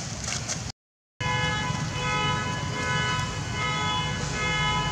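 A sustained pitched tone, several notes held at once, that shifts to new notes every half second or so, after a brief cut-out of all sound about a second in.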